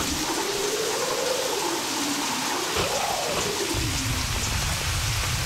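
Typhoon sound effect: steady heavy rain with wind howling, rising and falling in pitch over the first few seconds. A low rumble comes in about two-thirds of the way through.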